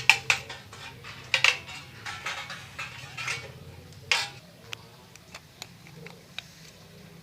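Hard small objects clinking and knocking as tools and parts are handled at a workbench: a quick run of sharp clacks in the first half, one longer scraping knock about four seconds in, then light scattered ticks.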